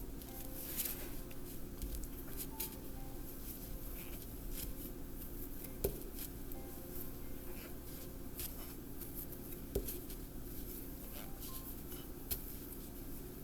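Crochet hook and yarn being worked around a charging cable: faint scattered rustling and small clicks, with three sharper ticks, over a steady low hum.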